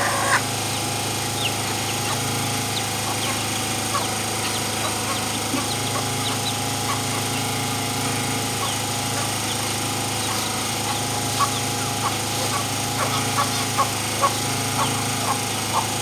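Chickens clucking and chirping in short, scattered calls, more often in the last few seconds, over a steady mechanical hum from a machine.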